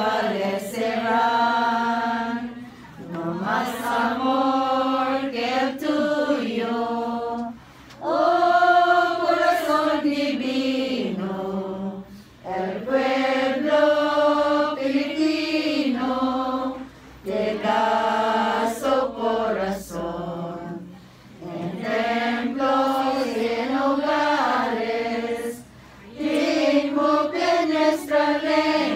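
A group of voices singing a hymn together without accompaniment, in phrases of about four seconds with short breaks for breath between them.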